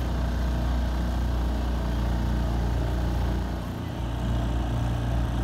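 Small motorboat's engine running steadily at speed, a low drone with a short dip in level about four seconds in.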